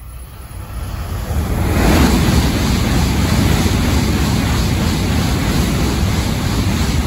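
N700S Shinkansen passing through at high speed without stopping: a rushing noise of wheels and air that builds over the first two seconds as the train approaches, then holds steady and loud as the cars stream past.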